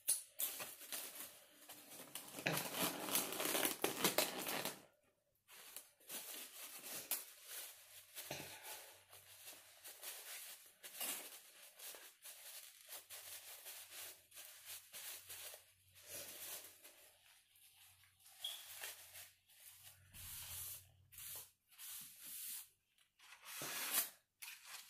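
Close-up rustling, crinkling and tearing of food packaging being handled, loudest and busiest in the first five seconds, then in short scattered bursts.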